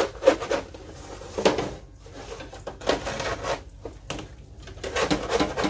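A flat scraper scraping and knocking against a baking sheet, with irregular strokes as roasted potato cubes are pried loose and turned. The potatoes are stuck to the pan.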